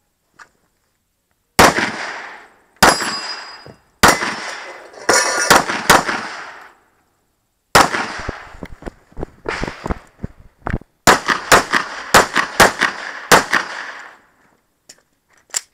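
A semi-automatic handgun fired in a string of shots, each a sharp crack with a short echo. The first shot comes about a second and a half in. The shots start a second or so apart and come faster, in quick runs, in the second half, with a last shot near the end.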